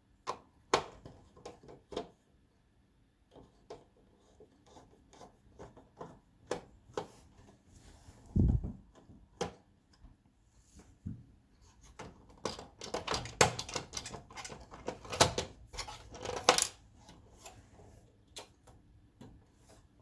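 Parts of a Panasonic projector being handled and worked loose during a teardown: scattered sharp clicks and knocks, a dull thump a little before the middle, and a busy flurry of clicks in the second half.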